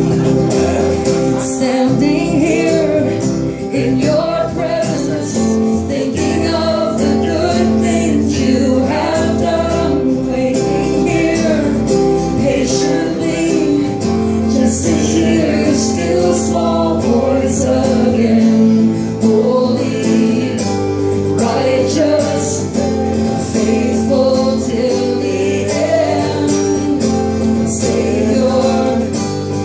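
Live worship music: a woman singing while strumming an acoustic guitar, with an electric bass guitar holding low notes that change every few seconds underneath.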